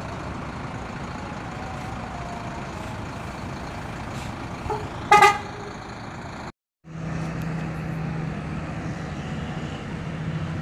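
Bus engines and traffic running steadily at a bus terminal. A vehicle horn toots briefly about five seconds in. After a short break, a steady low engine hum follows.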